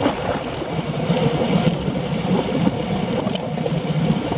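Steady wind rush and tyre hum picked up by a camera mounted on a road bike while riding along.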